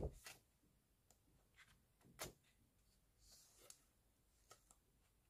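Pages of a photobook being turned by hand, faint: a soft paper flap at the start, another sharper one about two seconds in, and a brief paper slide a little after three seconds.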